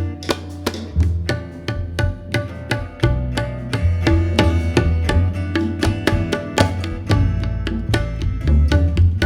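Live jazz band playing an instrumental passage: quick, busy tabla strokes over sustained bass notes, with pitched instruments above.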